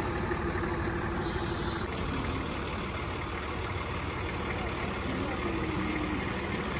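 A 4x4's engine running steadily at low revs, with no revving.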